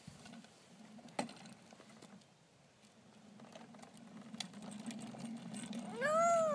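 The hard plastic wheels of a toddler's ride-on toy car roll over asphalt, a steady low rumble that grows louder toward the end, with a single sharp click about a second in. Near the end a child's voice lets out one drawn-out, rising-and-falling call.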